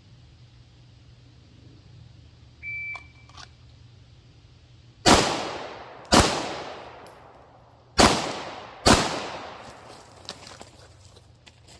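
A shot timer beeps once, then a PSA Dagger 9mm pistol fires four shots: two about a second apart, a pause of nearly two seconds, then two more about a second apart. Each shot has a short ringing tail.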